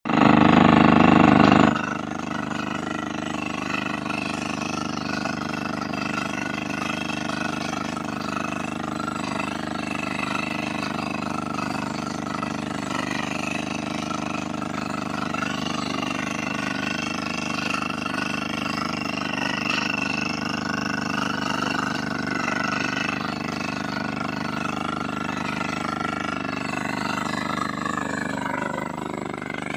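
Mining drilling machine running steadily. It is much louder for the first second and a half, then holds an even level.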